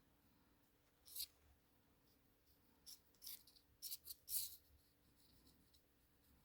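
A few short, sharp clicks and scrapes of a pocket Swiss Army knife's tools being worked: one about a second in, then a quick cluster from about three to four and a half seconds in.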